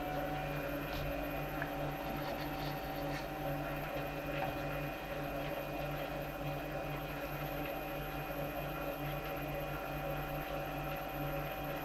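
Small metal lathe running with its chuck spinning: a steady motor-and-gear whine over a low hum, the pitch rising briefly and settling right at the start as it comes up to speed.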